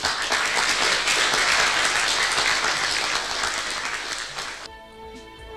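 Audience applauding, many hands clapping in a dense patter that cuts off abruptly near the end as music comes in.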